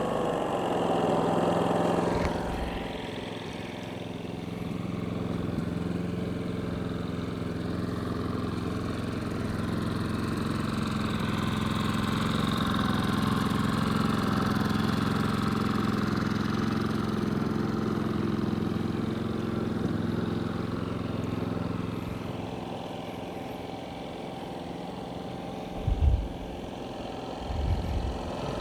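Westinghouse iGen4500 inverter generator running, its engine dropping to a lower, quieter speed about two seconds in as eco mode takes effect. The speed then rises a little and eases off again later. A few low thumps near the end.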